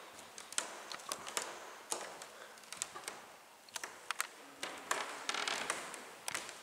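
Irregular light clicks and taps, many in quick, uneven succession, over a quiet room background.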